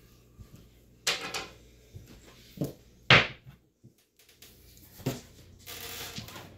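Casino chips clacking and being set down on a felt-covered craps table: a few separate clacks and knocks, the loudest about three seconds in, then a short sliding rustle near the end.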